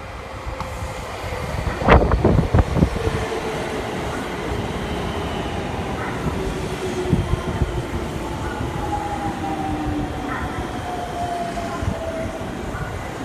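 Eight-car electric train pulling into the platform: a quick run of wheel clacks over the rail joints about two seconds in, then steady running noise with a whine that falls slowly in pitch as the train slows.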